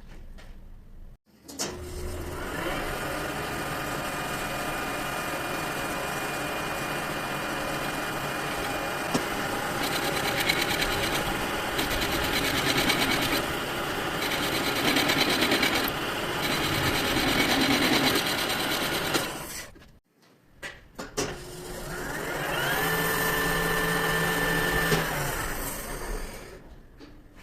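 Metal lathe starting up with a rising whine, then running with a steady gear hum while a cutting noise swells and eases several times. It stops about two-thirds of the way through, starts again with another rising whine, runs briefly and winds down near the end.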